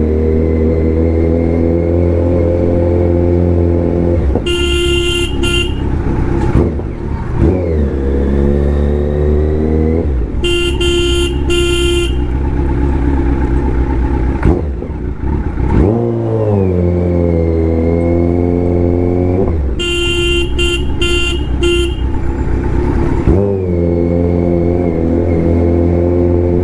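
Kawasaki Z900's inline-four engine idling with a loud exhaust, briefly revved up and dropping back twice. A vehicle horn sounds in three rounds of short, stuttering honks.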